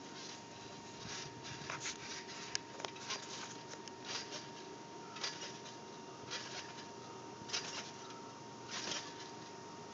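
A trampoline's springs and mat under repeated bouncing: faint, short creaking swishes about once a second, with one sharper click about two and a half seconds in.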